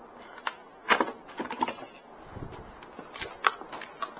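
Cardboard box being opened by hand, an irregular series of sharp cardboard clicks and short scrapes.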